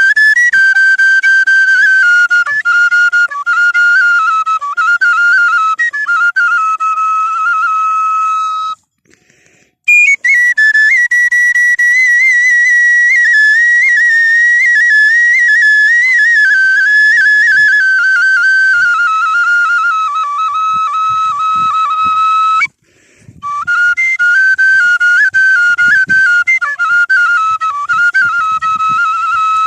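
A flute-like wind instrument playing a slow, ornamented melody in long, high phrases, with two short breaks for breath.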